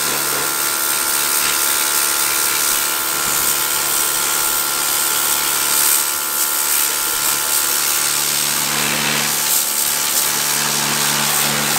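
Pressure washer running steadily, its jet hissing against the skin of a hanging hog carcass as it washes it down.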